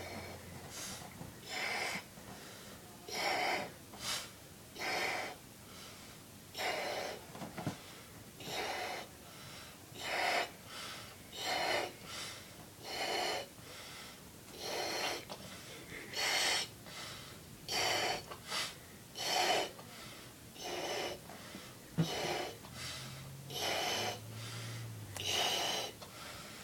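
A person blowing up a rubber punchball balloon by mouth: a hard rush of breath roughly every second and a half, repeated over and over as the balloon fills. One sharp click partway through.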